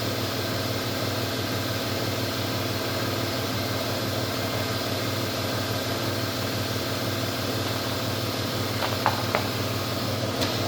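Steady mechanical hum with a low drone, like a fan or air-conditioning unit running, with a few faint clicks near the end.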